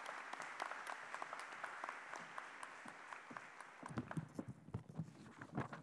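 Audience applauding, thinning out and dying away about four seconds in. Then a few soft knocks and rustles of papers handled at the podium microphone.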